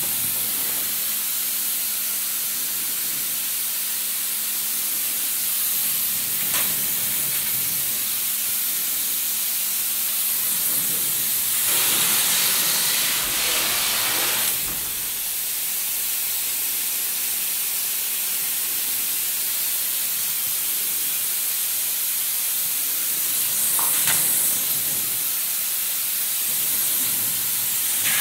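Spray gun of a Foam Tornado spray foam system hissing steadily as it sprays open-cell foam insulation, with a louder spell of spray about halfway through and a brief swell near the end.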